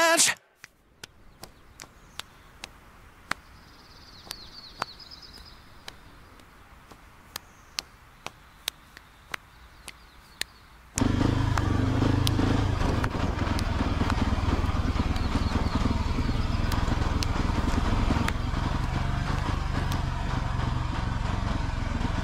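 Quiet background with scattered sharp clicks and faint high chirps, then about halfway a sudden switch to a motorcycle engine running steadily while riding along a dirt track, with wind and road noise.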